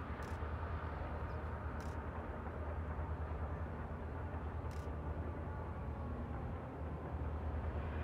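Distant diesel freight locomotives working, a steady low engine drone mixed with the rumble of the train rolling on the rails.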